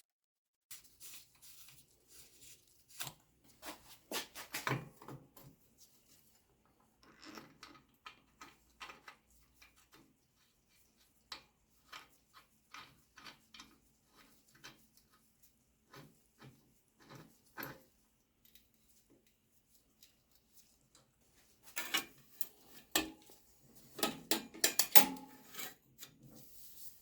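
Tools and bicycle parts being handled in a workshop during bike disassembly: scattered metal clicks, clinks and rubbing, irregular and without rhythm, getting busier and louder near the end.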